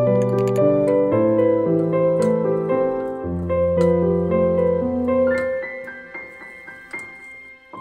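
Background piano music playing a slow melody, fading away over the last couple of seconds.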